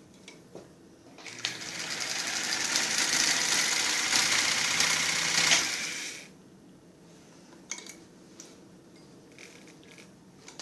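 Early electric Singer sewing machine running through one stretch of stitching: it speeds up over about a second, runs steadily for a few seconds, then slows and stops. A few light clicks come before and after.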